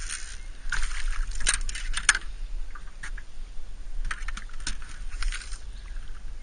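A hooked northern pike thrashing and splashing at the water's surface: bursts of crackly splashing, sharpest about a second and a half to two seconds in and again from about four to five and a half seconds in.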